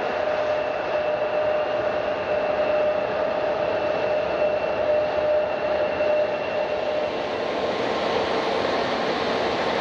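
Jet airliner engines running with a loud, steady rush and a whining tone. The whine fades about seven seconds in, and a lower tone comes in near the end as the sound grows brighter.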